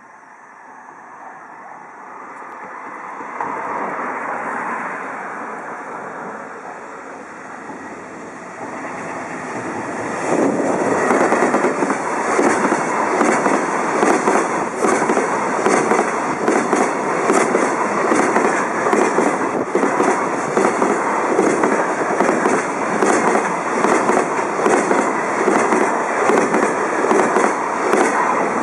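Freight train hauled by a JR Freight EF210 electric locomotive approaching and passing close by at speed, the rumble growing louder. From about ten seconds in, the container wagons' wheels beat a fast, steady clickety-clack over the rail joints.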